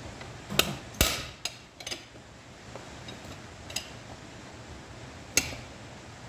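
Sharp metal-on-metal knocks as tools are worked on the tractor's clutch parts: six uneven strikes, the loudest about a second in, with a brief ring.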